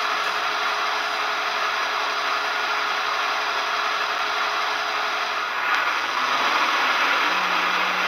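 Sound decoder in a model Class 55 Deltic locomotive playing the Deltic diesel engine sound through a small speaker, a hissy, steady running note. A little under six seconds in it gets louder and a low engine note rises and then holds steady as the locomotive powers up to restart its train.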